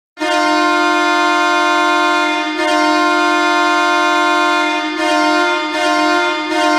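Hockey arena goal horn blowing one long, loud, steady tone with a few brief dips, the signal of a home-team goal.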